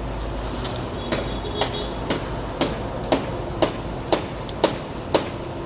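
Hammer blows struck at a steady pace of about two a second, each a sharp knock with a short ring, over a steady low rumble of machinery.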